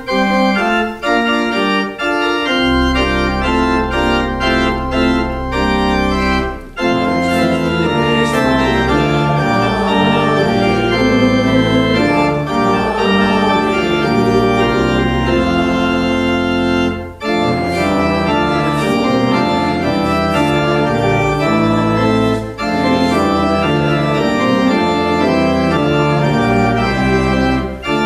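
Church organ playing a slow piece in sustained chords over a deep bass line, with short breaks between phrases.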